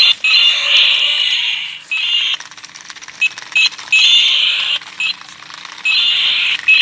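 Battery-operated toy lizard's electronic sound chip playing shrill sound effects through its small speaker. The sound comes in bursts of about half a second to two seconds, with short blips between them.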